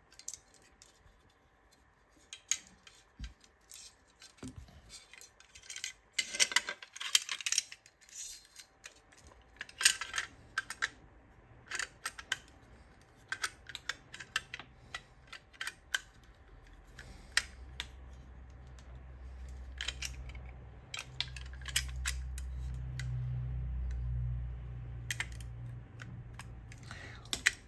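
Small airsoft gearbox and HPA engine parts being handled on a workbench: scattered light clicks and taps of plastic and metal pieces. A low steady hum builds from about a third of the way in and eases off near the end.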